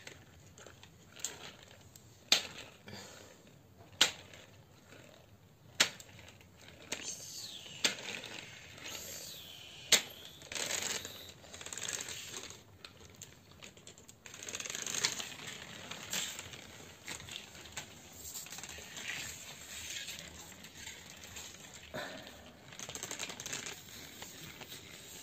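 Plastic toy bicycle being handled on a hard floor: sharp plastic clicks every second or two, then a low, uneven scraping rustle as it is moved about.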